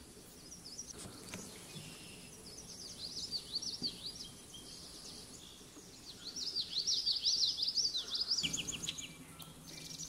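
Songbirds singing: rapid series of high, sweeping chirps, one run about two and a half seconds in and a louder run from about six and a half seconds. A faint steady high tone sits under the first half.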